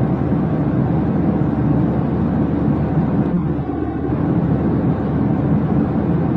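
Steady low rumbling noise, like a vehicle running, with no changes or distinct events.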